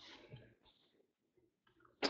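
Near silence: room tone, with one faint tick about a third of a second in.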